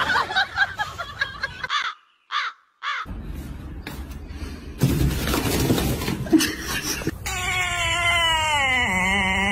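A domestic cat's long, drawn-out yowl begins about seven seconds in, its pitch wavering, dipping and rising again. Before it come short stretches of mixed sounds and a brief near-silent gap about two seconds in.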